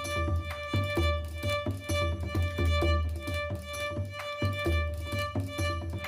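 Background music: a melody of short notes over a steady held tone and repeated low bass notes.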